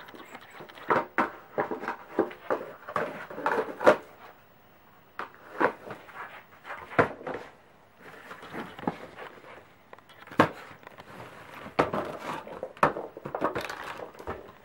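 A Pembroke Welsh corgi nosing and tearing at a cardboard snack box: irregular clusters of crackling, ripping cardboard and sharp knocks of the box against the floor, with brief pauses between bouts.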